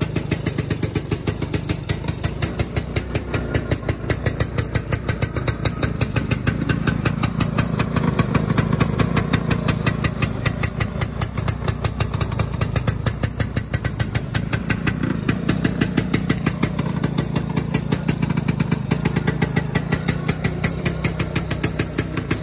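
1981 Yamaha V80's small two-stroke single-cylinder engine idling steadily, with a rapid, even exhaust beat.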